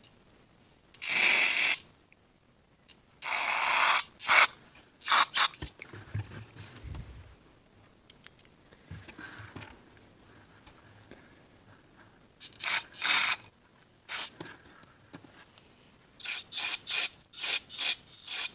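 Aerosol carb cleaner hissing through a red extension straw into a small-engine carburetor's pilot jet in short bursts: two longer ones in the first four seconds, scattered spurts after, and a quick run of about six near the end. It is flushing out the tiny pilot jet passage to check that it is clear.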